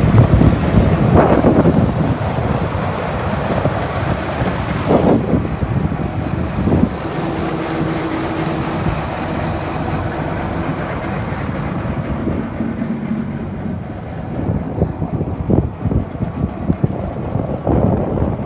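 2003 John Deere 7810's six-cylinder diesel engine running at idle, with wind buffeting the microphone in gusts.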